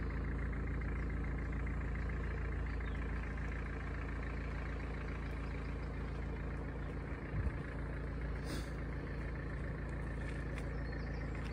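A steady low engine-like hum, even in pitch, over outdoor background noise, with a brief low rumble about seven seconds in.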